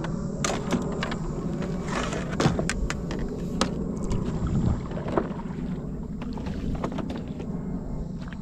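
Knocks and clicks in a small fishing boat, a run of sharp taps and bumps over a steady low rumble.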